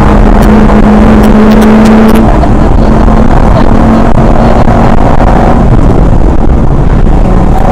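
Rally car engine running hard at high revs, heard loud from inside the stripped, roll-caged cabin, with road and tyre noise underneath. A few sharp clicks sound about a second in.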